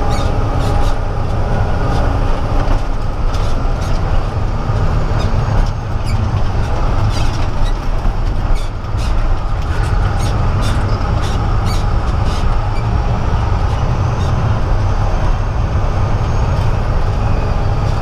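Peterbilt semi truck's diesel engine running steadily while driving, heard from inside the cab as a loud low drone. Frequent short clicks and rattles from the cab as it rides over a rough dirt road.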